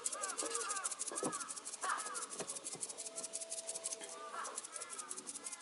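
Birds calling in short repeated chirps, over a fast, even, high-pitched ticking that runs throughout and breaks off briefly about four seconds in.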